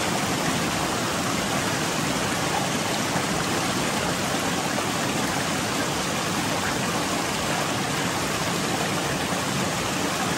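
Loud, steady rushing water, an even noise with no breaks or separate splashes.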